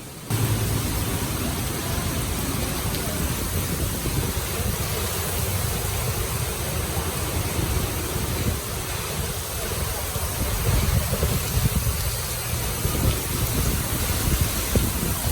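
Heavy rain, a steady rushing hiss, with a low rumble buffeting the microphone; it starts abruptly a moment in.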